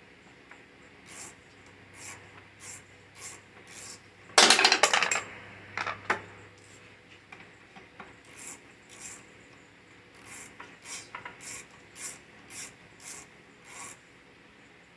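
Hand-tool work on a lawn mower: short scraping strokes repeated two to three times a second, with a louder clatter about four seconds in.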